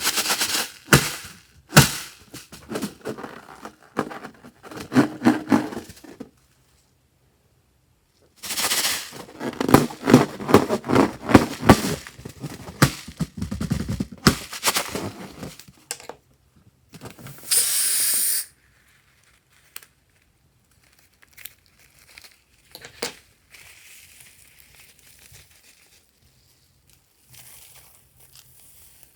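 Slime being squished and stretched by hand, giving runs of dense crackling, clicking pops. About two-thirds of the way through there is a short steady hiss, then only a few faint clicks.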